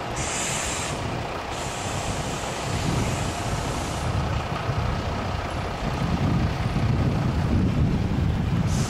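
Wind buffeting the microphone, a rough, uneven low rumble, with a high hiss over the first four seconds that drops away about four seconds in.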